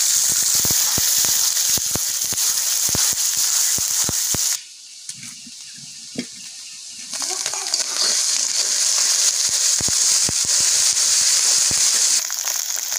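Sliced onions and spice pastes sizzling and crackling in hot oil in an iron karai. The sizzle drops away for about two seconds a third of the way in, then returns as the mixture is stirred.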